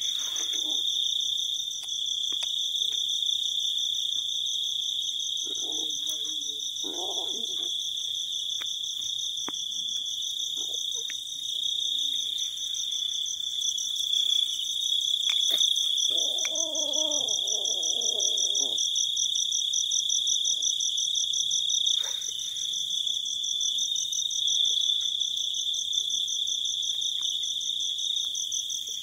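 Night insects trilling in a steady high chorus with a fast pulse to it. A couple of short lower calls break in, about six seconds in and again around sixteen to eighteen seconds, with faint scattered clicks.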